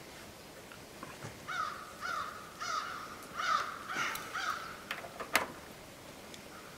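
A crow cawing about six times in a quick series, followed by a few sharp metal clicks near the end, one of them loud, from small engine parts being handled.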